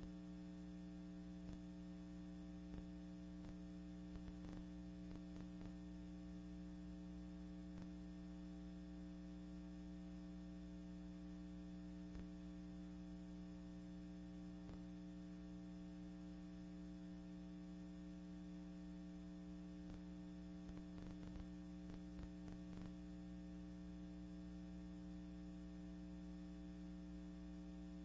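Faint, steady electrical hum with a few scattered faint clicks, the noise floor of a silent archival film transfer with no recorded sound.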